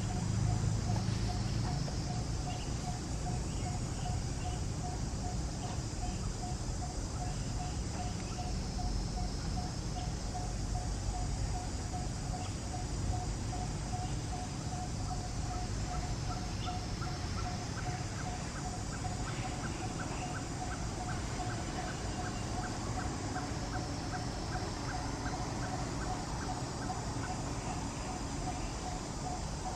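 Outdoor animal sounds: a single-pitched note repeated rapidly and evenly throughout, over a steady high hiss. From about halfway, a second series of higher ticking notes joins in for about ten seconds.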